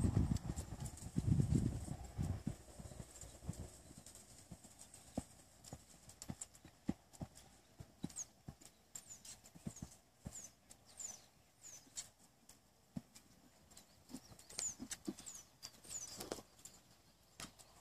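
A horse's hoofbeats on a sand arena as it canters in a circle on a longe line. The thuds are loudest in the first two seconds or so as it passes close, then continue as fainter, irregular hoof falls.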